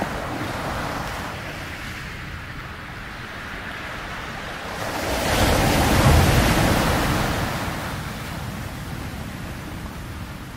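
Ocean surf: a steady wash of waves, with one wave building to its loudest about halfway through and then slowly fading.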